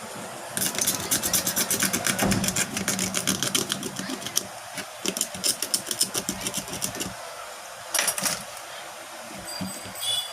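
Rapid clicking, about a dozen clicks a second, in two long runs and a short burst near the end.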